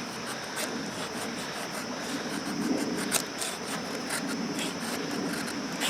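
A dull knife blade shaving curls down a stick of ash to make a feather stick, with continuous scraping strokes against the wood. The blunted edge still carves the wood acceptably.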